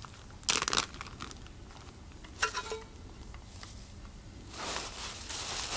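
Metal camp cookware clattering: a utensil knocking and scraping against a metal pot, with sharp clinks about half a second in and again around two and a half seconds in, the second ringing briefly, then a longer scraping sound near the end.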